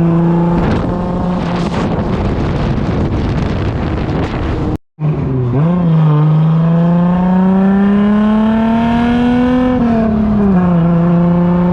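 Turbocharged Volkswagen VR6 engine of a kart running loud at speed: a noisy, hard-running stretch at first, then after a sudden break the engine note climbs slowly for a few seconds and drops back to a steady pitch.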